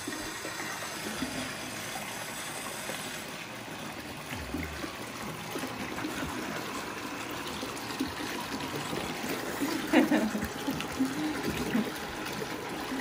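Water running and trickling in a bathtub, a steady stream throughout, with a few brief voice sounds about ten seconds in.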